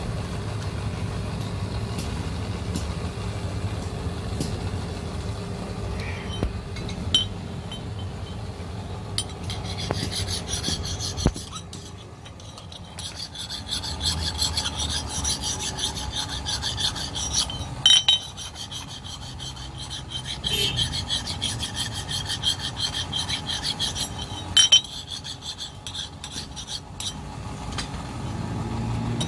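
Hand file rasping across the edge of a steel axe head in quick back-and-forth strokes, sharpening it; the filing starts about ten seconds in and runs until near the end with a couple of short pauses. A steady low hum sits underneath.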